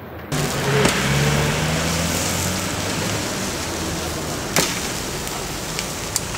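Whole chickens sizzling over a charcoal grill, a steady hiss, with a few sharp metal clicks from the tongs and grill baskets. A low hum sits under the hiss for the first two seconds.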